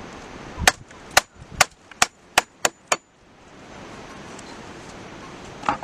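Hammer blows: seven sharp strikes that come a little quicker each time, then one more strike near the end.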